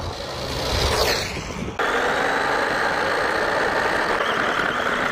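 MJX Hyper Go RC monster truck driving on asphalt: electric motor whine and tyre noise, with the whine falling in pitch about a second in. From about two seconds in it is heard from a camera riding on the truck, a steady rush of tyre and wind noise over the motor whine.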